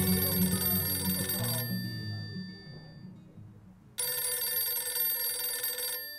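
A telephone ringing in two rings of about two seconds each, the first stopping about a second and a half in and the second starting about four seconds in, over soft background music.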